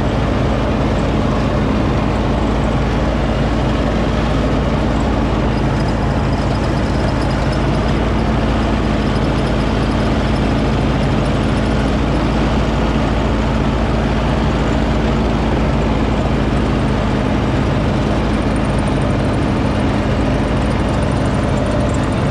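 John Deere riding lawn tractor's engine running steadily as it drives across a lawn, a constant drone with no change in speed.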